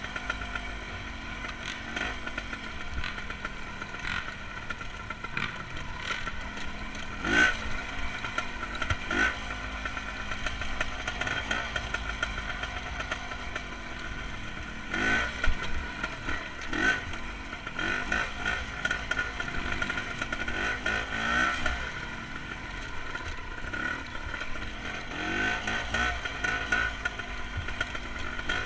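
Single-cylinder dirt bike engine running under load, the throttle opened and closed in short bursts so the revs rise and fall several times. There is some clatter from the bike over rough ground.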